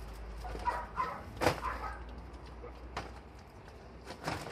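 A dog gives a few short yelps and whimpers as it pulls back against the leash, with a sharp click about a second and a half in.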